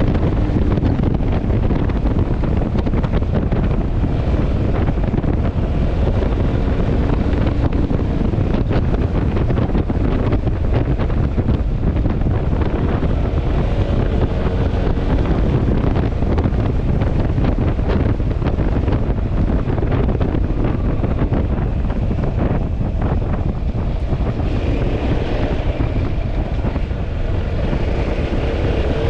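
Heavy wind buffeting on the microphone of a moving Yamaha XMAX scooter, with the scooter's engine and road noise running steadily underneath.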